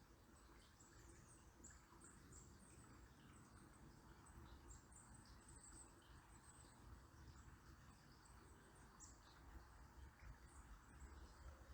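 Faint, high-pitched chirps of small birds, scattered and irregular, over a soft steady rush of river water.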